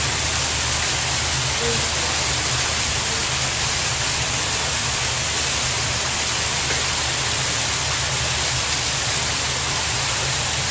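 Hot spring water pouring over a stone ledge in a small cascade: a steady, loud rushing splash.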